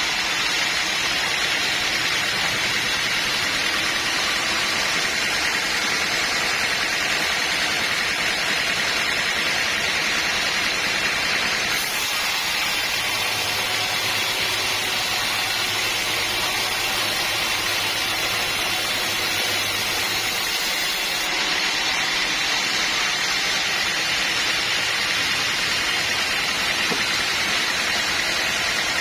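A sawmill saw running through a teak log, giving a steady, noisy whir. The sound shifts abruptly about twelve seconds in and again about twenty-one seconds in.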